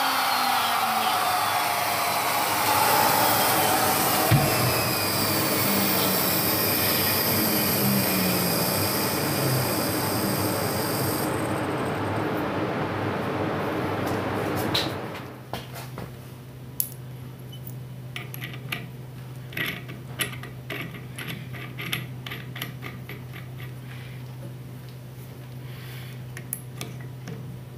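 Plunge router cutting a housing into a timber beam, its motor running loud with a whine whose pitch sags as the bit takes load. About fifteen seconds in it stops abruptly, leaving a low steady hum and small metallic clicks as the router motor's collet and bit are handled.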